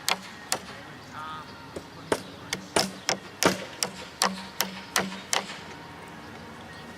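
A run of sharp hammer knocks, quick at first, then spaced out and irregular, stopping a little past halfway: nails being driven while building wooden firework mortar racks.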